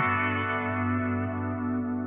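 Background music: sustained, layered chords, with a chord change right at the start.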